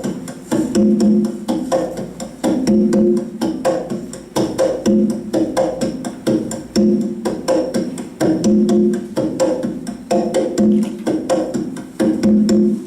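Conga drums playing a tumbao, the basic repeating Latin conga rhythm: sharp strokes and ringing open tones in a pattern that comes round about every two seconds.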